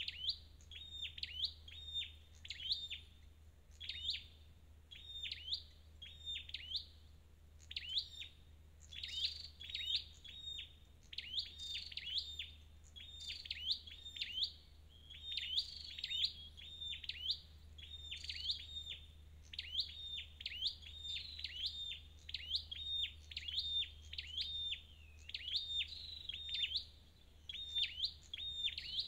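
A flowerpecker calling continuously: short, high, sharp chip notes repeated in quick clusters. A low steady hum runs underneath.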